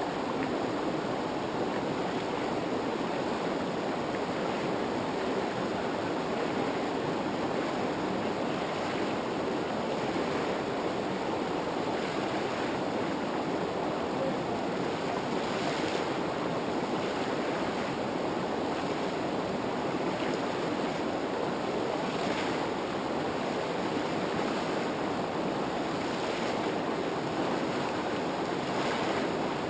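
Rushing water of river rapids, a steady, even rush.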